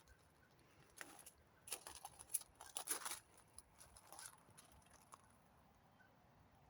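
Faint, irregular scuffs and rustles of footsteps on a garden path, clustered in the first half and once more a little after four seconds.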